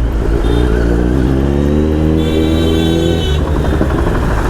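Motorcycle engine accelerating, its pitch rising steadily for about two seconds before easing off.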